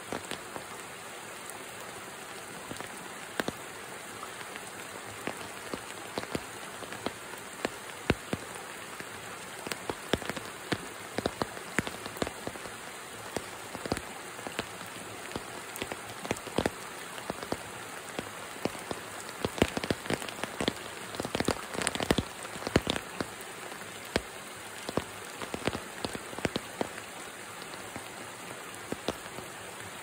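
Rain falling on a creek pool and wet rock: a steady hiss with many close drops ticking sharply, thickest a little past halfway.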